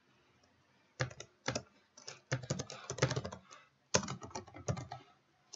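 Typing on a computer keyboard: quick runs of keystroke clicks, starting about a second in.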